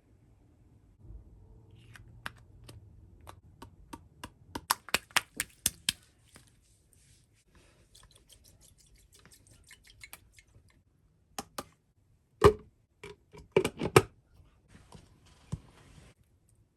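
Handling of a toy and its plastic packaging: a run of small sharp clicks and ticks, quickening to about five or six a second for a moment, then a few louder knocks near the end.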